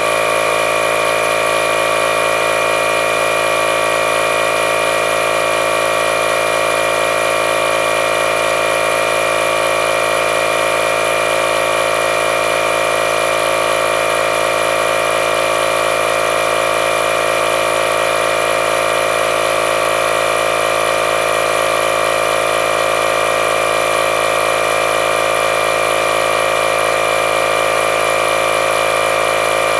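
Milwaukee M12 12-volt compact inflator's compressor running steadily under load while filling a low tire. The pressure is still far below its 12 psi set point.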